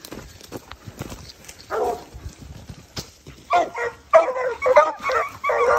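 Five-month-old Griffon Fauve de Bretagne hounds baying: one call about two seconds in, then a quick run of yelping bays from about three and a half seconds on, as the young hounds give voice at a wild boar. Dry brush and twigs crackle underfoot before the baying.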